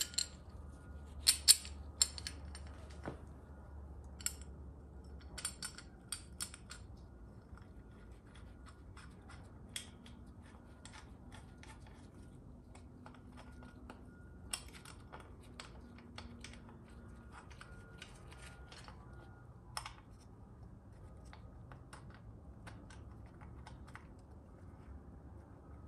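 Scattered light metal clicks and taps as bolts are handled and started into the governor cover of a GM TH400 transmission case, thickest over the first seven seconds and sparser after.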